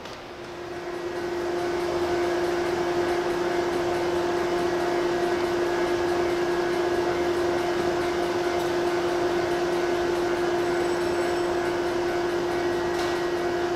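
Steady electrical hum of a Shinano Railway electric train standing at the platform: its onboard auxiliary equipment runs with one strong held tone. The hum swells in over the first two seconds, then stays even.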